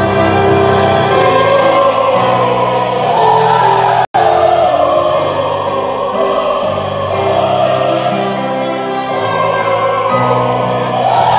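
Live classical processional music: an operatic singing voice with vibrato over sustained instrumental accompaniment, held notes ringing in a large church. The sound cuts out for an instant about four seconds in.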